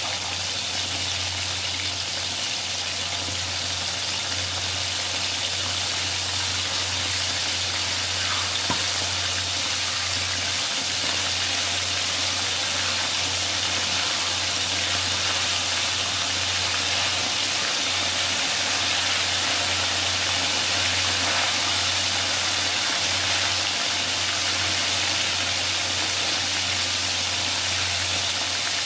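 Coated chicken pieces deep-frying in hot oil in a wok: a steady, dense sizzle, with a low steady hum underneath.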